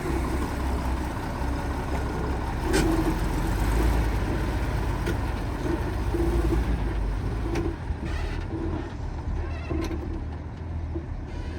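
Excavator engine running with a steady low rumble, its pitch rising and falling in short spells as it works, and a couple of sharp clanks.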